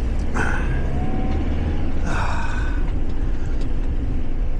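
Van engine running with road rumble, heard from inside the cab, broken by two short hissing bursts about half a second and two seconds in.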